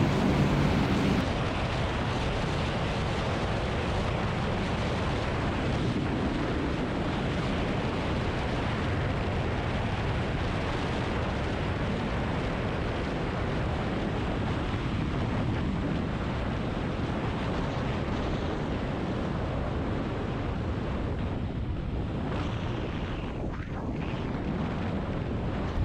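Steady rushing wind on an action camera's microphone from riding a motorcycle at speed on an open road, with no engine note standing out.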